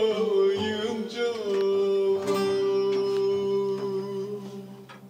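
Bağlama (saz) playing the closing notes of a Turkish folk song while a male voice holds the last sung note long and steady. A few plucked strokes sound over it, and the music fades out near the end.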